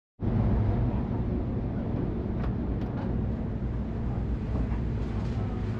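A boat engine droning steadily, a low even rumble. The sound drops out for a split second right at the start.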